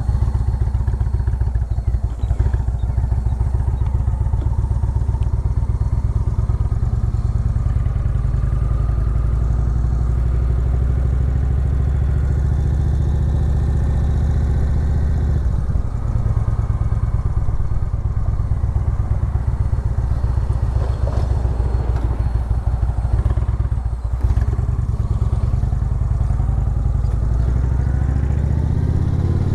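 Motorcycle engine running steadily while riding along a city street, its low exhaust note dipping briefly a couple of times as the speed changes.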